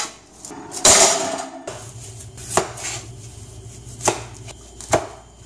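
Large kitchen knife cutting a green apple on a plastic cutting board: one loud cut about a second in, then three sharp knocks of the blade on the board.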